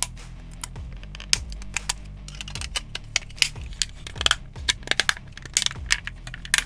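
Snap-fit plastic parts of a Bandai Perfect Grade Strike Rouge model kit clicking and snapping together as they are pressed and fitted by hand: an irregular run of sharp plastic clicks, some in quick clusters.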